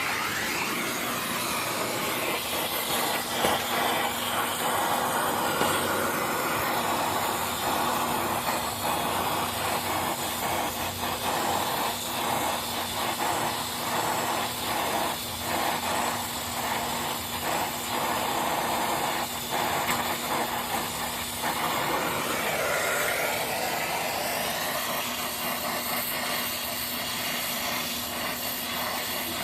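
Brazing torch flame hissing steadily while it heats the copper joints of an air-conditioning unit, with a faint low steady hum underneath.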